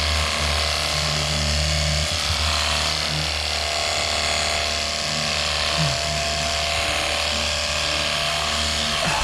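Jet Hawk cordless pressure washer running steadily, its pump motor humming under the hiss of the water jet.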